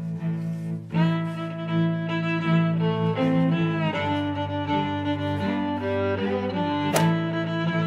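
Background music played on bowed strings, with held notes that change every second or so. A single sharp click sounds near the end.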